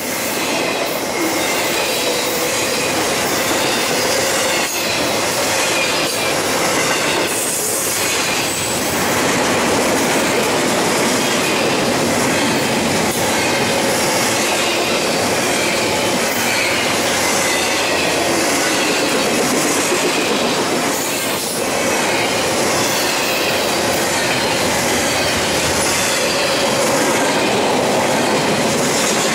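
Double-stack intermodal container cars of a freight train rolling past close by: a steady, loud rumble of steel wheels on rail, with faint wheel squeal and a few brief knocks.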